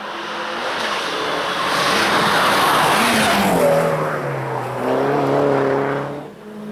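Race car passing at speed: the engine and tyre noise build to a loud peak, then the engine note drops in pitch as it goes by and holds briefly before cutting off near the end.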